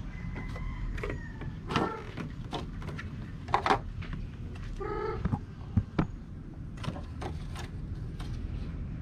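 Hard plastic seedling trays and their clear domes being handled, with sharp clicks and knocks as the lids come off and the trays are set down. A bird calls twice in the background, once held about a second near the start and once briefly about halfway.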